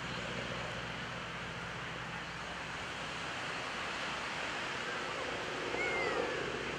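Faint, distant drone of an SNJ-5 Texan's Pratt & Whitney R-1340 radial engine under a steady hiss of surf and wind.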